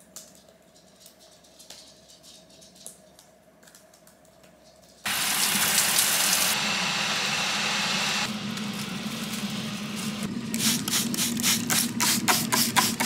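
Faint tapping on a laptop keyboard. About five seconds in, a loud, steady rushing noise starts abruptly, and near the end a regular beat of sharp strikes, about three a second, comes in over it.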